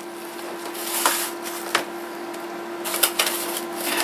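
Handling noises at a workbench: a few sharp clicks and knocks, one about a second in and a quick cluster in the last second, with light crinkling of bubble wrap, over a steady low hum.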